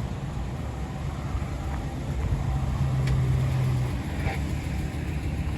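Street ambience: a steady low rumble of a motor vehicle, its engine hum swelling for a second or two in the middle.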